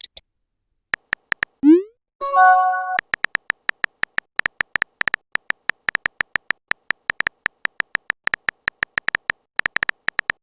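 Chat-app sound effects: a few typing clicks, a short rising pop, and a brief chime about two seconds in, then a long run of rapid typing clicks.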